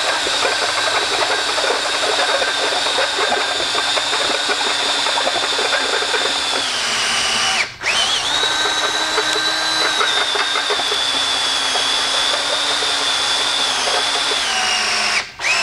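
DeWalt 18V cordless drill running at low speed, its bit grinding through the second wall of a stainless steel tube. It stops briefly about halfway, then runs on and cuts off just before the end.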